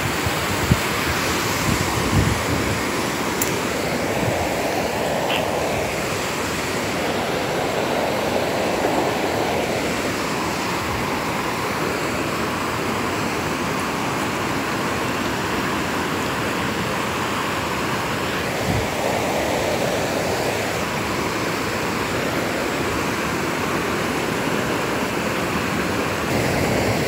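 Steady rushing of a river's white water and waterfall close by, with a single sharp knock about a second in.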